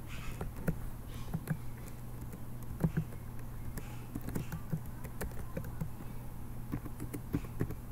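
Computer keyboard keys clicking in an irregular run of keystrokes as a password is typed.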